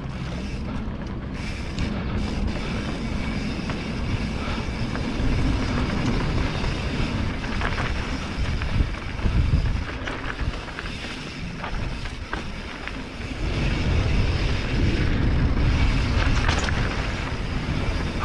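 Mountain bike rolling fast down a dirt singletrack, heard through a GoPro camera riding with the bike: a steady rumble of wind on the microphone and tyres on dirt, with sharp knocks and rattles from the bike over bumps. It swells louder around the middle and again near the end, as the speed picks up.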